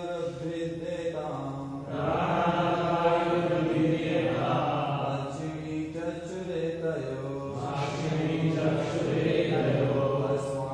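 Voices chanting a Sanskrit verse in a slow, melodic recitation, holding long notes. The chanting swells from about two seconds in.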